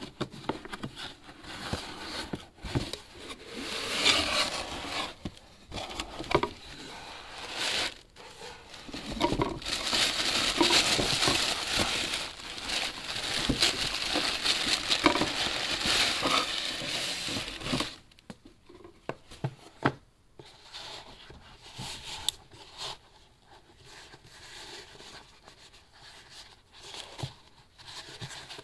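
Cardboard box being handled and opened, then tissue paper crinkling and rustling, loudest through the middle stretch. It then quietens to scattered light taps and rustles as a small cardboard gift box with a ribbon is handled.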